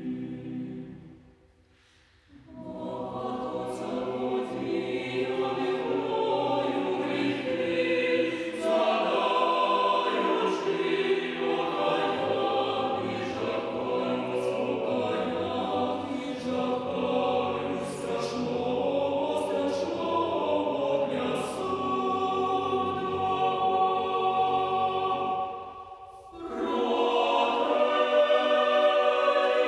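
Mixed chamber choir of men's and women's voices singing a cappella in held chords. The singing breaks off briefly about two seconds in, then resumes; it dips again shortly before the end and comes back louder.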